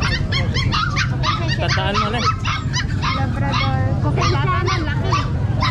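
Many puppies yipping and whimpering in their cages, a dense run of short, overlapping high calls over a steady low hum.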